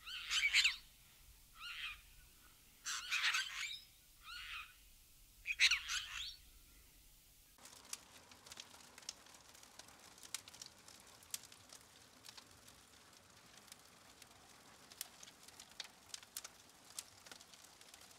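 A bird calling in five short phrases over the first half. Then, from about halfway in, a wood fire crackling softly with scattered sharp pops.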